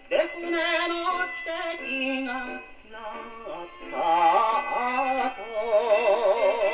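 A 78 rpm record of a Japanese popular song (enka), a sung melody over band accompaniment, played acoustically on a Sankyo Goldring portable wind-up gramophone with a steel needle. The sound is thin, with little treble above about 4 kHz.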